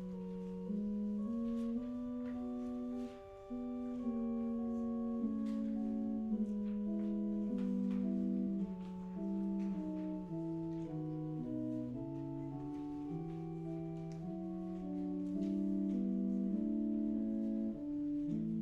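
Organ playing slow instrumental music in held chords, the notes changing every second or so.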